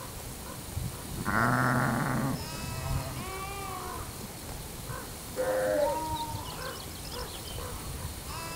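Sheep and lambs bleating: a loud, fairly low bleat about a second in, several higher bleats right after it, another loud bleat a little past the middle, and more calls near the end.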